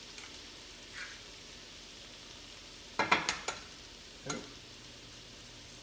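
An egg knocked against the rim of a glass measuring cup and cracked open: a few sharp knocks about three seconds in and one more a second later. Under it, the faint steady sizzle of diced vegetables frying in a skillet.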